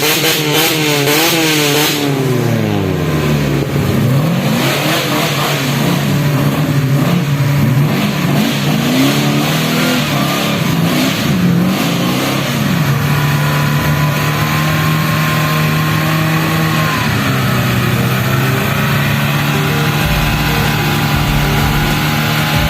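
Off-road 4x4 engine revving up and down repeatedly, then settling to a steady speed for the last several seconds.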